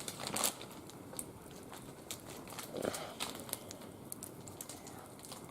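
Small wood fire burning in a barbecue grill, crackling with scattered sharp snaps and pops, two of them louder: about half a second in and about three seconds in.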